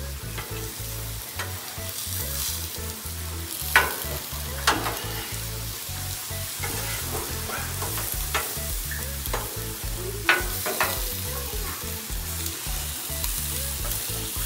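Hot dogs, pineapple and tortillas sizzling steadily on a hot Blackstone flat-top griddle, with a metal spatula clacking and scraping on the steel plate a few times, sharpest about four and ten seconds in.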